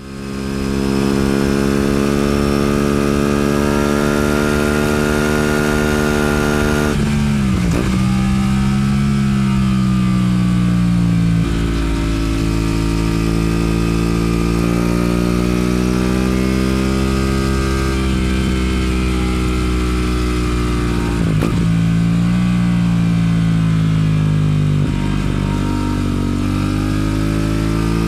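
Aprilia RS 457's parallel-twin engine under way at speed, its pitch climbing slowly as it pulls. Twice the pitch drops sharply and climbs again, as at a gear change.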